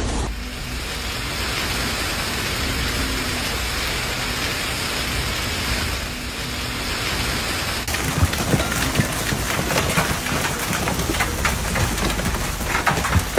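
Heavy storm downpour hissing steadily; about eight seconds in the sound changes to a dense clatter of sharp, hard hits, hailstones striking.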